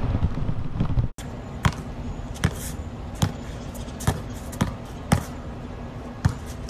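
A basketball being dribbled, single sharp bounces on a hard court roughly every three-quarters of a second. A louder stretch of noise at the start cuts off abruptly about a second in.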